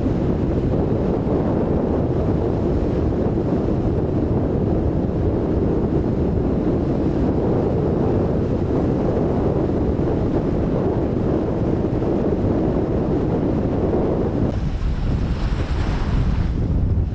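Strong wind buffeting the microphone over the wash of rough sea and waves, a dense, steady rumble. Near the end the low rumble drops away and a brighter hiss takes over.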